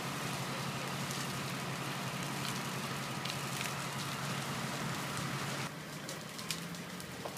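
Burning scrub and dry bush crackling and popping in a dense, rain-like patter, over a steady low hum that cuts off suddenly about three-quarters of the way through, after which the crackling goes on a little quieter.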